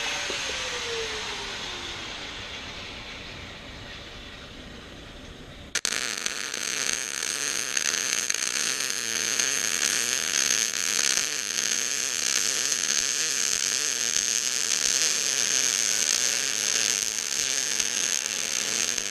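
Welding arc crackling and hissing steadily while a bead is laid, starting suddenly about six seconds in and holding an even sound for about thirteen seconds. Before it, a fading whir falls in pitch.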